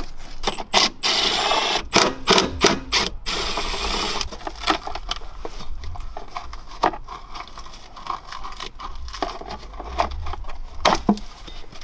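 A wrench working a rusted bolt on a car's fuel filler pipe bracket: quick runs of metallic ratchet-like clicks, densest in the first few seconds and sparser later, with two short rushing noises near the start.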